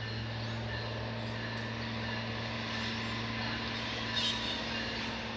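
Diesel locomotive of a passenger train running with a steady, even hum, with a brief high squeak about four seconds in.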